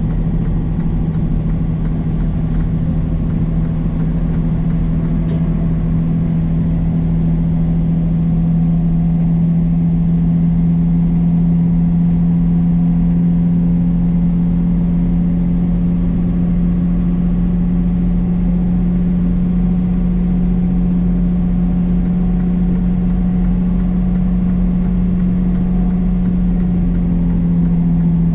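Semi-truck's diesel engine and road noise: a steady low drone holding one pitch, as at a constant cruising engine speed.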